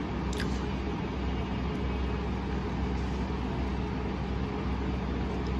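Steady low background hum with a hiss, even and unchanging throughout.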